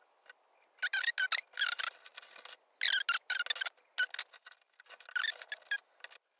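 Plastic 4x4 Rubik's Cube pieces clicking and squeaking against each other as corner pieces are pressed onto the edge pieces, in a string of short, irregular bursts.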